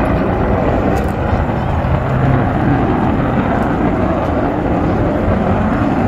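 Jet aircraft passing overhead: a loud, steady rumbling rush of engine noise that holds level throughout.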